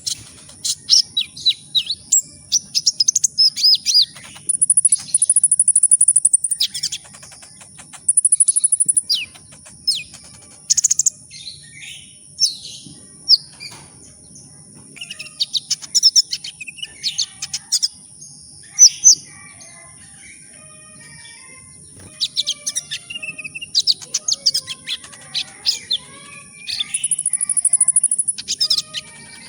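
Kolibri ninja sunbird singing: bursts of rapid, high-pitched chirps and short fast trills with pauses between them. A steady faint high whine runs underneath.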